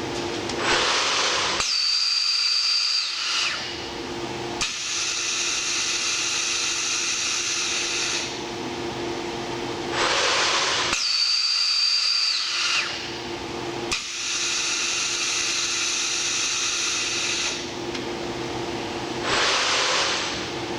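A rebuilt Sencorp 2500 roll-fed thermoformer running through its cycle over a steady hum. About every nine seconds comes a burst of air hiss, then a short high whine that drops away, then several seconds of hissing before the next cycle.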